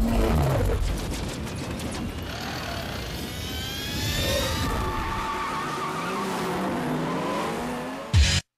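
Film-soundtrack car sounds: engines revving and tyres squealing, mixed with music. Near the end a chopped, stuttering beat cuts in.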